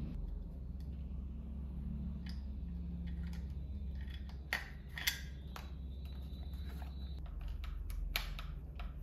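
Hard plastic clicks and light knocks as the casing of a 20 V cordless-tool battery pack is fitted back together and a screwdriver is set into its screws, the sharpest about four and a half, five and eight seconds in, over a steady low hum.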